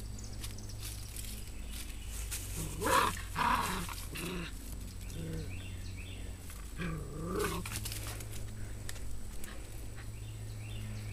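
Airedale terrier puppies growling as they play-fight, with louder outbursts about three seconds in and around seven seconds.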